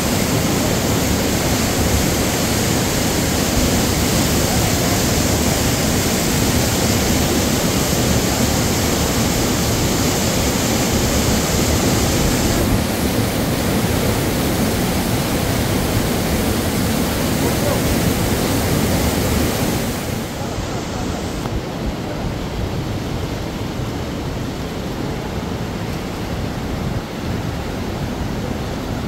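Steady rush of river water, an even noise with no pauses, which drops a little in level about two-thirds of the way through.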